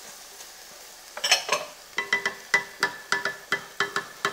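A wooden spoon stirring chunks of veal and diced red pepper in a heavy pot. From about a second in it knocks against the pot's side in a quick run of taps, about three a second, over a faint sizzle from the frying.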